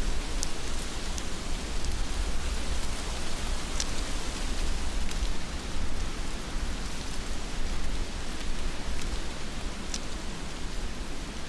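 Heavy rain falling steadily, with a low rumble underneath and a few sharp taps of drops landing close by.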